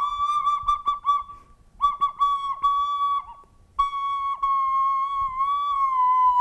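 Bamboo block flute, Native American-style, played by a beginner: one held breathy note with quick downward blips as fingers come off the holes, in three phrases broken by two short breath pauses, and a small step up in pitch near the end.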